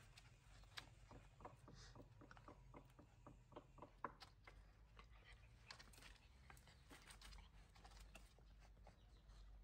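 Near silence with faint small clicks and taps: a quick run of a few a second over the first few seconds, then scattered ones, over a faint low hum.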